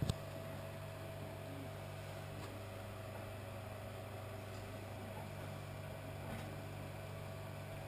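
Steady low electrical hum of a reef aquarium's pumps and equipment, with a second, slightly higher hum that drops out for a few seconds in the middle. A sharp click comes right at the start.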